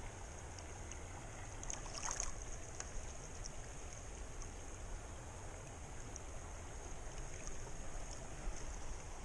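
Shallow mountain river's current running steadily over rocks, with one brief splash about two seconds in.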